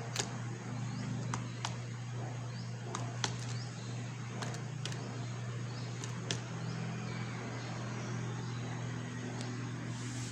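Cardboard escapement mechanism ticking: sharp clicks, mostly in pairs, every second or two over a steady low hum.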